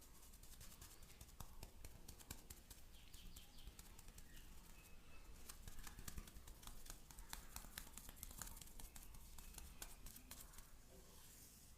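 Faint close-up handling sounds: scattered small clicks and crackles over a low hum.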